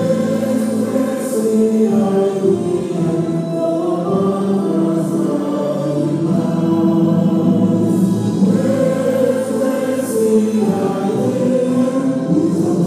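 A choir singing in long held notes.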